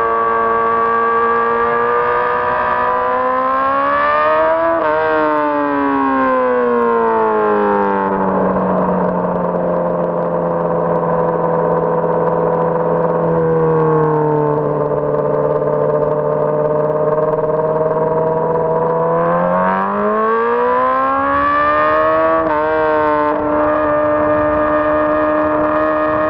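2006 Honda CBR600RR's inline-four engine running at high revs. Its pitch climbs and drops, holds lower for about ten seconds, then climbs again and stays high near the end.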